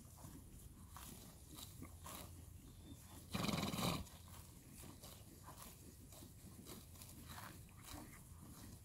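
Horses grazing close by, tearing and cropping grass in a run of small, irregular crunches. About three and a half seconds in comes one loud rushing burst lasting about half a second.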